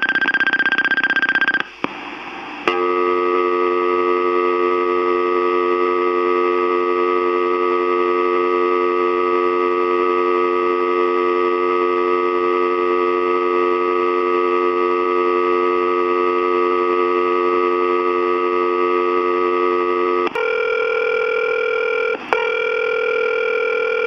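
Answering machine tape playing back a telephone line after the caller hung up: a high steady beep in the first couple of seconds, then a steady dial tone. About 20 seconds in the tone changes pitch, with a brief break a couple of seconds later.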